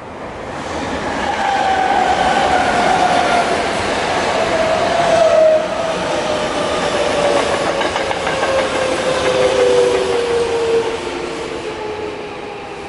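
A Tokyo Metro electric commuter train running past, its traction motors giving a loud whine that falls slowly in pitch, with overtones, over the rumble of wheels on rail.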